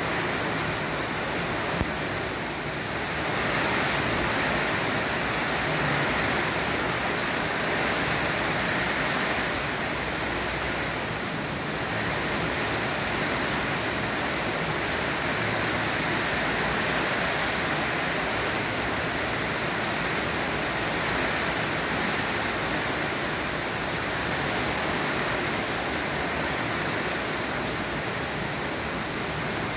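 Steady rain falling outside a window: a dense, even hiss that swells a little now and then.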